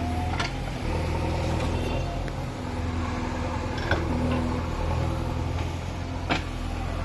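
JCB backhoe loader's diesel engine running steadily, with three sharp clanks: about half a second in, near the middle, and near the end.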